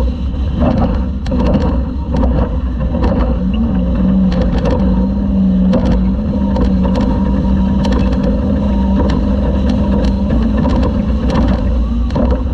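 Toyota Class 2000 off-road race truck's engine running hard at a fairly steady pitch over a heavy low rumble, with frequent rattles and knocks from the truck pounding over rough ground.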